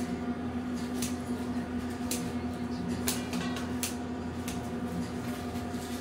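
Steady machine hum with a constant low tone, broken by a few light clicks and taps.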